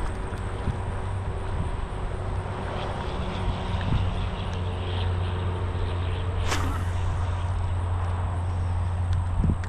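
A steady low engine hum runs throughout. About six and a half seconds in there is one brief, sharp sound.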